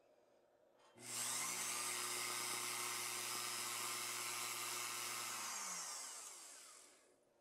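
Burnt-out MAXNC stock 115-volt spindle motor switched on, running with a steady electrical hum and a harsh high hiss while sparks glow through its vent slots, a sign of arcing inside the failing motor. About 5.5 s in the hum stops as the power is cut, and the hiss falls away as the motor spins down and stops.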